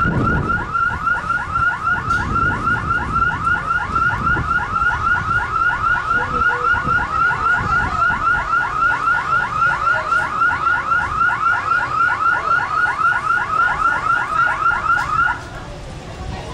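Car alarm sounding a rapid, evenly repeating electronic chirp, about five a second, that cuts off abruptly near the end.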